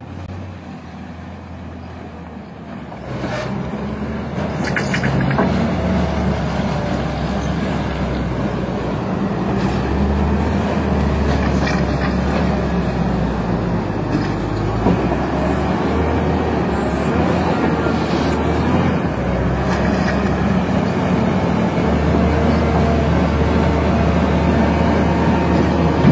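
Diesel engine of a large Volvo wheel loader running hard as it carries a heavy marble block, a steady low drone that builds over the first few seconds. A few short knocks come about three to five seconds in.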